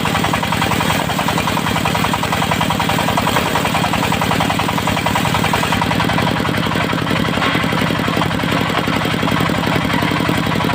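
Diesel engine of a mobile circular sawmill running steadily with an even, fast pulse.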